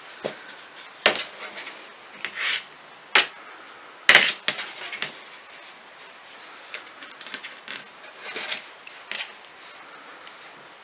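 Metal tips of a circular knitting needle clicking against each other as stitches are knitted, with soft rubbing and rustling of yarn and hands. A few sharp clicks come in the first half, the loudest about four seconds in.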